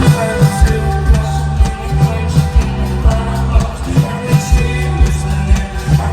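Live hip-hop concert through a loud sound system: a heavy bass line and kick drum keeping a steady beat, with a voice singing over it.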